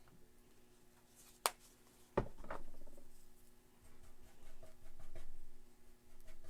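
Acrylic painting supplies handled at a palette: a sharp click about a second and a half in, a knock with a short ring just after two seconds, then soft brushing and scraping of paint. A faint steady hum underneath.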